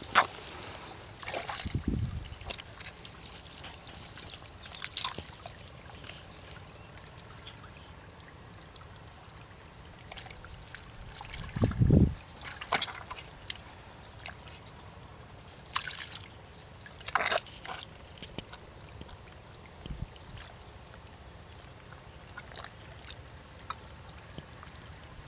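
Bare hands digging in wet mud and muddy water: scattered squelches, slaps and sloshes, with a few low thumps as clods are pulled out, the loudest about twelve seconds in.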